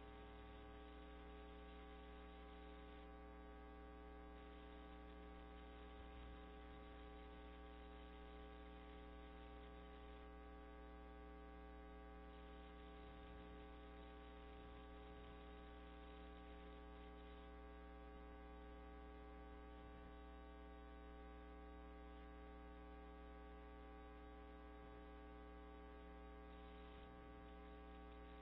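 Near silence: a faint, steady electrical mains hum with many evenly spaced overtones over a low hiss.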